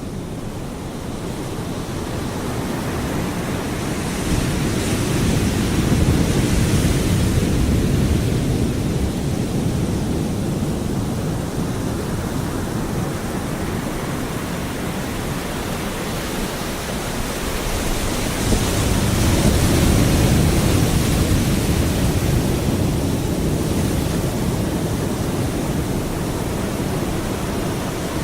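Pacific Ocean surf crashing onto a beach in a steady roar with wind, two big waves swelling and breaking, one about five seconds in and another near the twenty-second mark.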